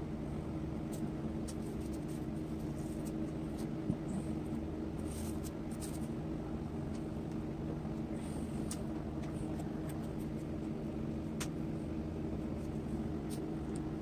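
A steady low hum, with scattered small clicks and crinkles as a paint-smeared plastic sheet and a small paint cup are handled.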